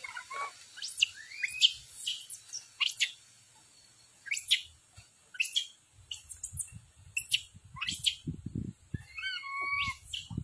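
A series of short, high chirping calls, each sweeping sharply upward, repeated every half-second to a second, with a couple of longer stepped whistle-like notes near the end. Low scuffling noises come in during the second half.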